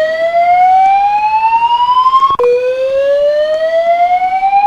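Fire alarm voice evacuation speaker sounding the slow whoop evacuation tone: a loud tone rising steadily in pitch over about three and a half seconds, dropping back and starting its rise again about halfway through.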